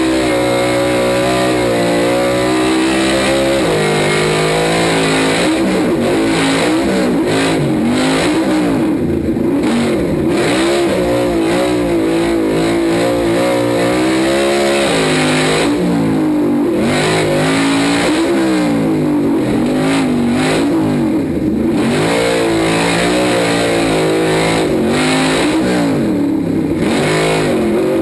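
Off-road truck's engine, heard from under the chassis, revving up and easing off over and over as it drives hard on dirt, over a constant rush of wind and dirt noise.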